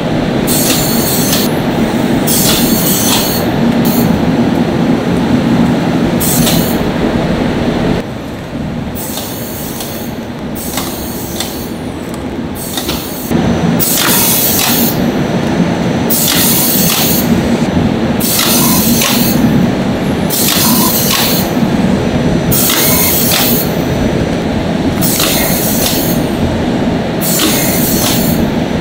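Food-production machinery running with a steady low hum and a short hissing burst about once a second; it drops quieter for several seconds around eight seconds in, then returns.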